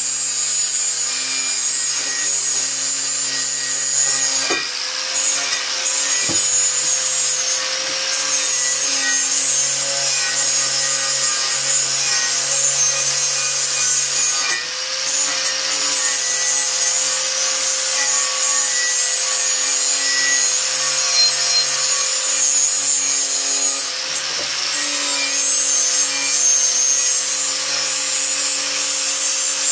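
Angle grinder with a wire cup brush scouring rust off a steel oil lamp's tank: a steady motor whine under the scratching of wire on metal. It dips briefly three times, about ten seconds apart, as the brush shifts on the part.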